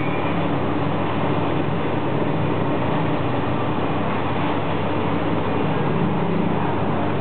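The cutting torch of an SPC-3060 CNC plasma cutting machine running steadily while cutting steel, a constant hiss over a low hum.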